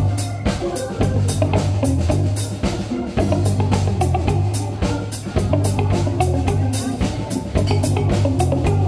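Electric cigar box guitar played with a slide, backed by electric bass and a drum kit keeping a steady beat of about four hits a second.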